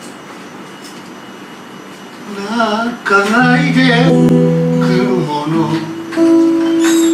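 A man singing live to his own acoustic guitar. The first two seconds hold only soft guitar; then the voice comes in, louder, with a wavering pitch.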